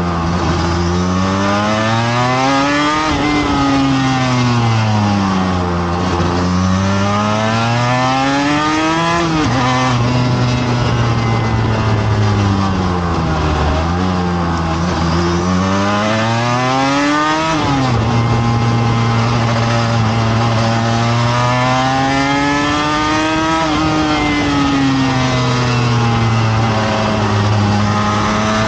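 Racing motorcycle engine heard from on board at speed on a track, its pitch climbing under acceleration and sagging as the rider slows for corners, with sudden drops in pitch at the gear changes.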